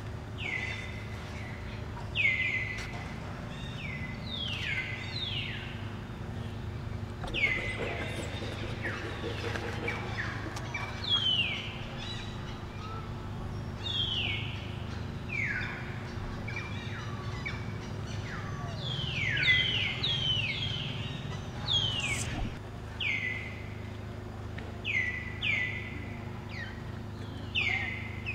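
A bird calling over and over: short, falling chirps, many in quick succession and sometimes overlapping, over a steady low hum.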